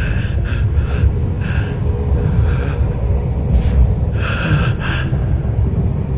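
A man gasping and panting in agony: short, breathy gasps about a second apart, with a longer one about four seconds in, over a steady low rumble.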